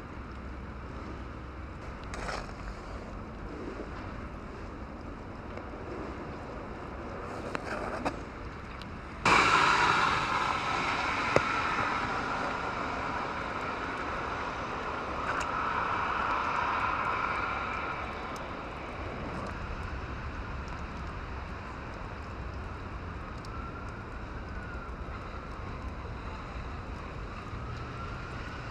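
Street traffic on a wet, icy road: a steady hiss of tyres and engines, with a louder stretch that starts suddenly about nine seconds in and fades over the next several seconds.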